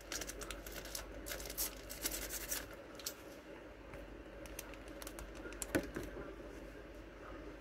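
Clear plastic packaging crinkling and crackling as it is handled and opened, a quick run of light clicks and crackles over the first three seconds, then sparser ones, with a sharper crackle near six seconds.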